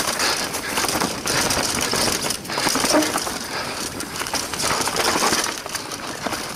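Mondraker Foxy Carbon RR 29 mountain bike descending a dirt trail at speed: knobby tyres crunching over dirt, roots and dry leaves, with the chain and frame rattling over the bumps in a dense run of clicks and knocks.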